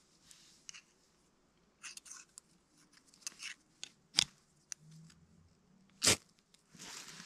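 Fire steel (ferro rod) scraped with a striker over a Trangia spirit burner to light the fuel. There are a few short, sharp scrapes, the loudest about four and six seconds in.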